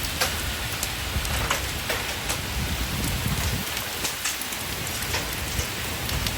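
Hailstones about an inch across pelting down in a steady dense clatter, with many sharp clicks of single stones striking hard surfaces. A low rumble comes in about three seconds in.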